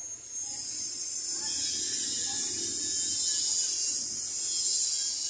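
A steady, high-pitched buzzing hiss that grows louder about half a second in and then holds.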